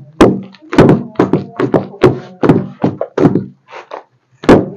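Pestle pounding cassava in a mortar: dull thuds about two a second, with a short break near the end.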